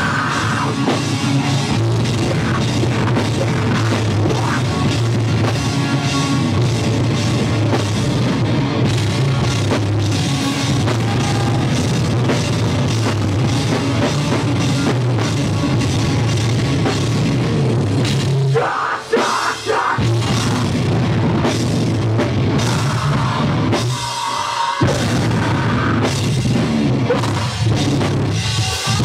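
Live rock band playing loud and heavy: electric guitars, bass and a drum kit with cymbals. The bass and drums cut out briefly twice, about two-thirds of the way through and again a few seconds later, before the full band comes back in.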